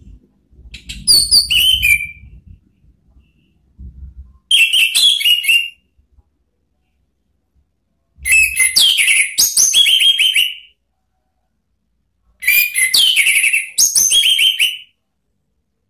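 Orange-headed thrush singing: four loud phrases of clear whistled notes and rapid trills, each lasting one to two and a half seconds, with pauses of about two seconds between them.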